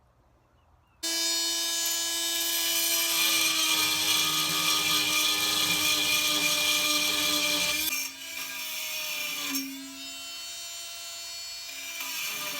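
A handheld power cutting tool starts up about a second in and runs with a loud, steady high whine as it cuts the head off a rusted steel bolt on the van's exhaust. Past the middle its pitch and loudness drop, and it runs on more quietly with small dips.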